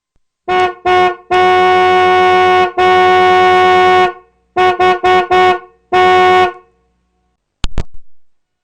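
Car horn honking: two short toots, two long blasts, three quick toots and one more medium blast, all on the same steady pitch.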